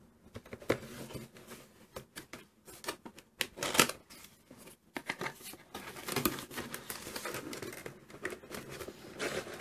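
Cardboard toy box being handled and its end flap prised open: irregular scraping, rustling and clicking of card, with the loudest scrape a little under four seconds in.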